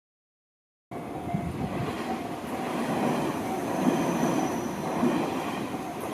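Tobu Tojo Line electric train running past on its rails, a steady rumble of wheels with swells in loudness, cutting in suddenly about a second in.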